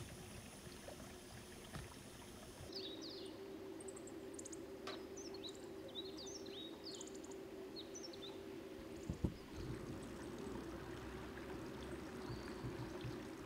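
Water flowing steadily, with a scatter of short high chirps from about three to eight seconds in and a single sharp knock about nine seconds in.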